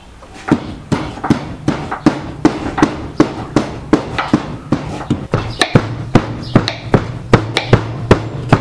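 Cleaver chopping raw beef into mince on a wooden cutting board: steady, even strikes at about three a second, starting half a second in.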